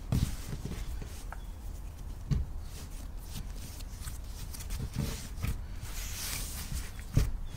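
Hands shaping soft sourdough bread dough on a floured board: palms rubbing and sliding over the dough and flour, with several soft dull thuds as it is pressed and turned, the strongest just after the start and near the end.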